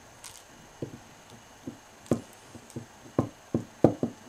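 Small painted wooden block toy tilted and rocked by hand on a wooden shelf, knocking against it in a string of about nine short, irregular wooden thuds that grow stronger in the second half.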